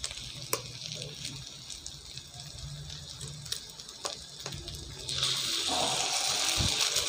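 Stir-fried vegetables sizzling faintly in an aluminium wok, with a few light clicks, then about five seconds in a louder, steady sizzle as a raw egg drops into the hot pan.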